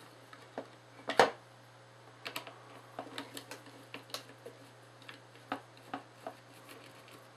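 Screwdriver working small screws out of a flood light's wiring box: scattered light clicks and taps of metal on screw and plastic, the loudest about a second in.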